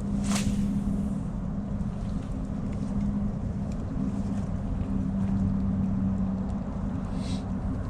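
Steady low engine hum, holding one pitch throughout. A short hiss comes about a third of a second in and another near the end.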